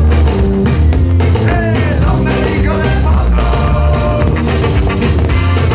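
Loud rock-style music with a heavy bass line and vocals, the soundtrack of a pyromusical fireworks show.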